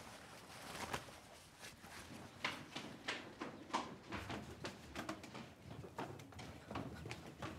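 Cloth rustling as a garment is pulled down from a clothesline, then footsteps at a walking pace, about two a second.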